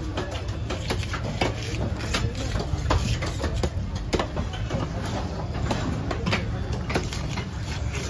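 A heavy fish knife scraping the large, tough scales off a parrotfish on a wooden log: a quick, irregular run of scraping strokes and sharp clicks as the scales come away.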